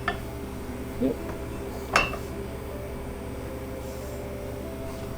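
A single sharp metallic clink with a short ring about two seconds in, from metal parts being handled, over a steady low hum.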